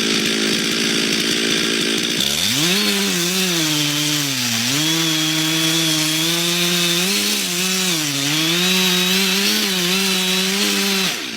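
Chainsaw engine running loud, its pitch climbing about two seconds in, then sagging and recovering several times before it cuts off near the end.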